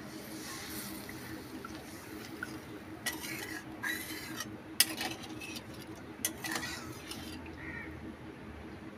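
A steel spatula stirring a watery curry gravy in a metal kadai, scraping the pan, with a few sharp clicks of metal on metal around the middle.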